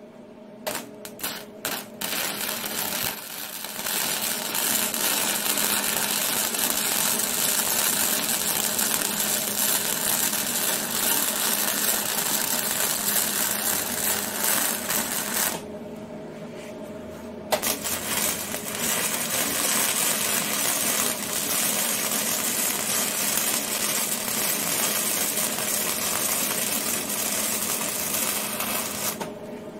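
Flux-core MIG welding arc from a Hobart welder on 1-inch angle iron. A few short sputtering starts about a second in, then the arc runs steadily in two long beads, broken for about two seconds a little past halfway and cutting off just before the end.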